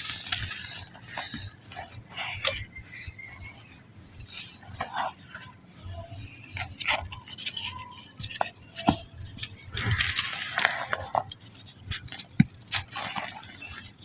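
Balls of soft black sand crumbling, with irregular crisp crackles and gritty rustles; a denser run of crumbling comes about ten seconds in.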